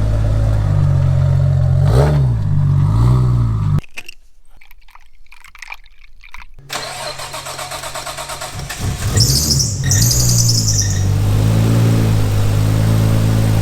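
Nissan Skyline R33's straight-six engine running with short revs, just started after new coolant heater pipes were fitted, to check them for leaks. About four seconds in the sound drops away for nearly three seconds, then the engine is loud again, with a brief high hiss a few seconds later and more blips of the throttle.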